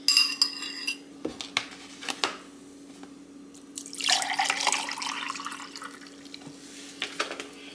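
A metal fork scrapes and clinks against a ceramic bowl for about a second, followed by a few light knocks. Then lemonade is poured from a cardboard carton into a glass for about two and a half seconds, the splashing rising in pitch as the glass fills.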